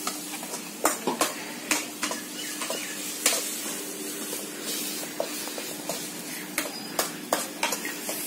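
Onion-tomato masala with ground onion, ginger and garlic paste sizzling in a kadai as a slotted metal spatula stirs it, with irregular clinks and scrapes of the spatula against the pan over the steady sizzle.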